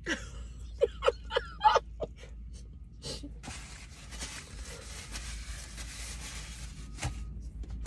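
A woman's short hums and mouth sounds while eating, then a soft, even hiss lasting about four seconds.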